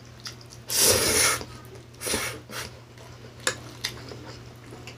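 A metal fork scraping and clicking against a plate while forking instant noodles. A louder scrape-like noisy burst comes about a second in, smaller ones around two seconds, and two sharp clicks a little before the end.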